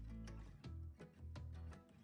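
Quiet background music with plucked notes and a steady beat over a deep bass line.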